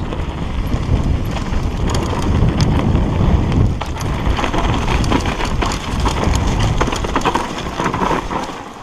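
Mountain bike riding fast down a dirt forest trail: a steady rumble of tyres over the ground with dense, irregular knocks and rattles from the bike over roots and bumps.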